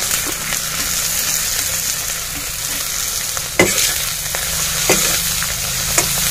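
Chopped vegetables sizzling as they fry in oil and egg in a karahi, with a steady hiss, while a metal spatula stirs them and knocks against the pan three times in the second half, the first knock the loudest.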